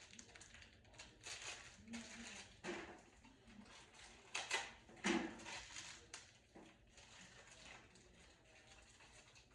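Rustling and light clatter of hands handling a bag of washer hose fittings, with two sharper knocks about four and a half and five seconds in.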